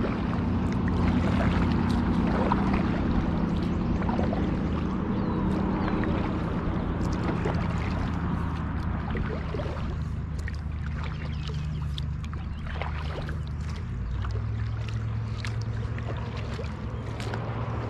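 A steady low motor hum over water noise, with scattered light clicks; the hum changes pitch about fourteen seconds in.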